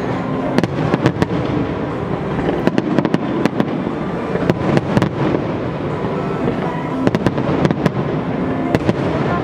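Aerial fireworks display: shells bursting in a dense, continuous run of sharp bangs and crackles.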